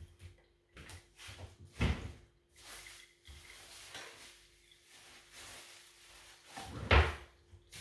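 Kitchen handling sounds: a knock about two seconds in, a stretch of soft rustling, then a louder knock near the end.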